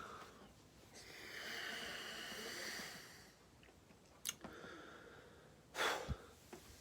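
A person doing closed-mouth burps: a long breathy rush of air about a second in, a click, then a short, louder muffled burp with a low falling tone near the end.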